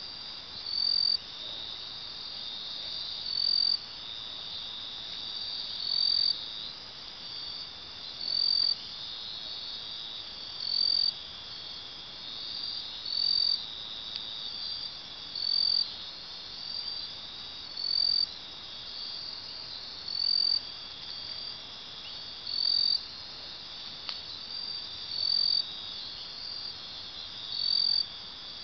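Night insect chorus of crickets: a steady high trill, with a short, louder high chirp repeating evenly about every two and a half seconds.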